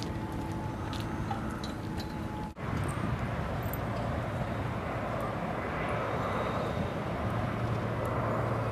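Steady outdoor background rumble with no clear single source, cut by a brief dropout about two and a half seconds in.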